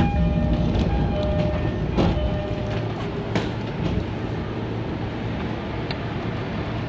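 Electric commuter train at a station, E231 series: a steady low electrical hum, with a few short whining tones and sharp clicks in the first couple of seconds.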